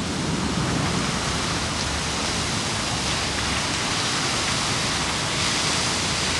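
Steady rushing splash of a tall vertical fountain jet falling back into its basin.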